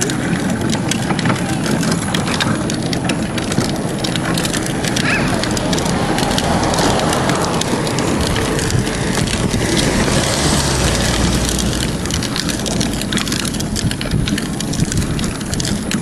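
Loud crackling and rustling handling noise on a phone's microphone as it is carried along, mixed with wind on the microphone.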